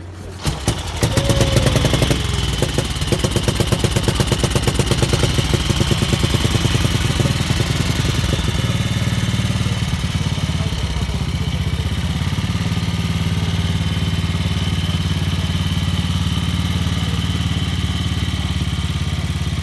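A vintage motorcycle engine catches and starts running. It fires with a pulsing beat for the first several seconds, then settles into a steady idle.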